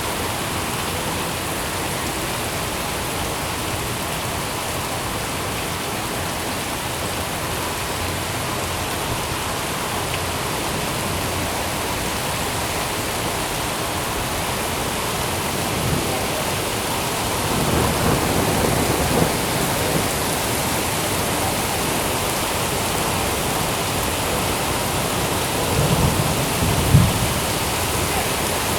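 Steady rain falling, with low rumbles of thunder rolling in during the second half, the loudest close to the end.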